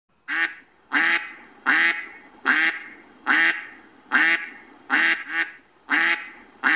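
Duck quacking: a steady series of about ten loud quacks, each a little under a second apart.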